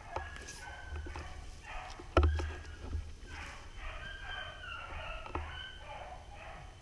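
Several beagles baying in drawn-out, overlapping howls while running a rabbit on scent. A sharp knock about two seconds in is the loudest sound.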